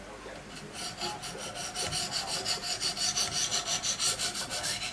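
Wicked Edge sharpener's diamond stones stroking along the edge of a CPM-S90V steel Spyderco fixed blade: a fast, even run of rasping scrapes that starts about half a second in and grows louder.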